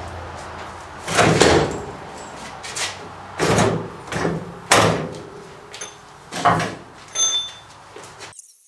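Irregular metal clunks and knocks, about six in all, from an MG's front suspension being worked loose while the front axle is taken out; one knock near the end rings briefly like struck steel. The sound cuts off suddenly just before the end.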